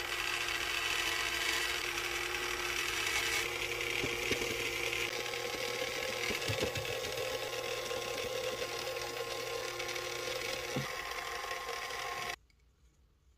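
Small battery motor of an Eggmazing egg-decorating spinner whirring steadily as it turns a ball ornament, with markers held against the spinning surface. The motor cuts off suddenly near the end.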